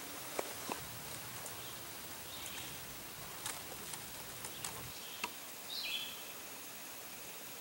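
Outdoor ambience with a bird chirping briefly now and then, the loudest call about six seconds in, and a few faint scattered clicks and taps.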